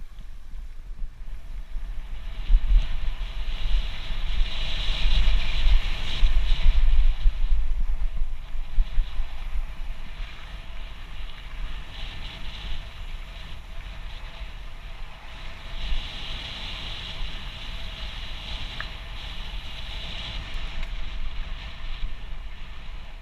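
Mountain bike ridden along a gravel dirt trail: wind buffeting the camera microphone with a low rumble, and the tyres running over the gravel in a rushing hiss that swells twice.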